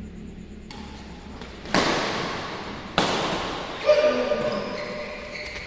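Badminton racket strikes on a shuttlecock during a rally: two sharp hits about a second and a quarter apart, each echoing in the hall.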